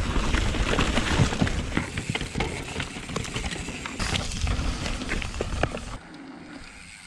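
Mountain bike clattering over rough ground, picked up by an action camera: irregular sharp clicks and knocks over a low wind rumble. The sound changes about four seconds in and turns quieter near the end.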